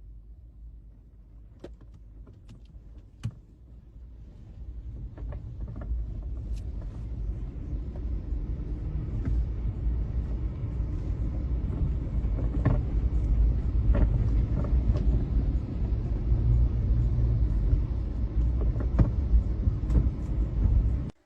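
A low rumble that grows louder from about four seconds in, with scattered sharp clicks, and cuts off suddenly at the end.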